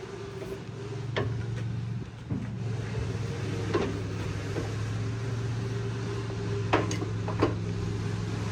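A steady low machine hum with a few sharp clicks and knocks, like tools or metal parts being handled, about a second in, near four seconds and twice around seven seconds.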